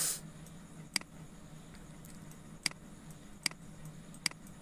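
Four sharp clicks of a computer mouse, unevenly spaced about a second apart, over a faint steady hum, with a short hiss right at the start.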